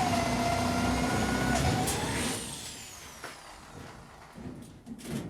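Electric drill running under load as it bores a hole, then released about two seconds in, its motor whine falling away as it spins down. A few light knocks and clicks follow.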